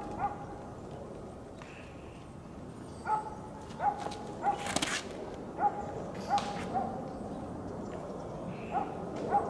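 A dog barking in short single barks, about ten of them in loose groups of two or three. A single sharp click comes about five seconds in.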